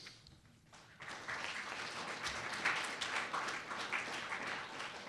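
Audience applauding, beginning about a second in with many hands clapping together.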